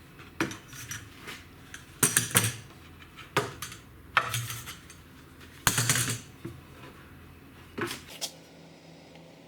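Rockler spring-loaded one-handed bar clamps being handled and set on the work: a series of short metallic clattering clicks and knocks, in about six separate bursts, the loudest about two and six seconds in.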